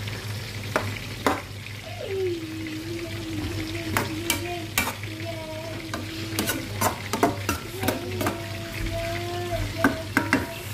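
Metal spatula scraping and knocking against a metal pan while stirring sautéed bitter melon with egg and tomato, over a steady frying sizzle; the knocks come thick and fast in the second half. A faint wavering tone runs underneath from about two seconds in.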